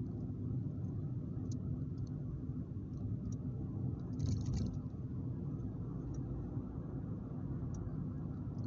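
Road noise inside a moving car's cabin: a steady low rumble of tyres and engine, with a few light clicks and a brief rattle about four seconds in.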